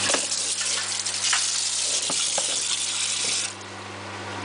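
Kitchen tap running, water splashing into the sink as small hands are rinsed under it; the flow is shut off about three and a half seconds in.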